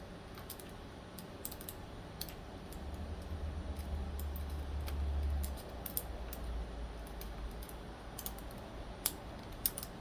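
Scattered light clicks and taps of small knife parts and tools being handled while a folding pocket knife is reassembled. A low rumble, like handling noise on the work surface, runs for a couple of seconds in the middle.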